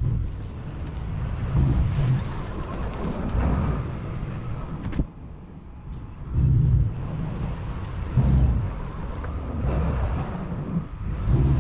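A vehicle's low rumble that swells and eases irregularly, with a single sharp click about five seconds in.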